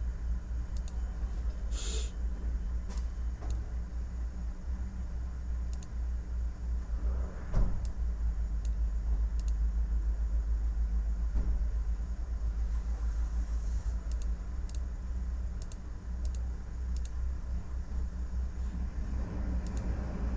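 Computer keyboard keys clicking in scattered, irregular keystrokes over a steady low rumble of city traffic, with a single dull thud about seven and a half seconds in.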